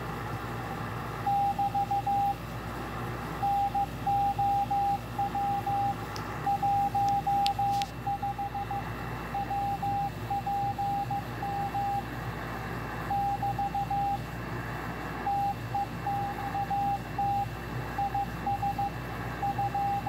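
Morse code (CW) from W1AW on 3581.5 kHz, heard from a shortwave receiver: a single steady beep keyed on and off in dots and dashes over a bed of band hiss, starting about a second in. This is the code-practice transmission sending its speed announcement ("NOW 10 WPM TEXT IS").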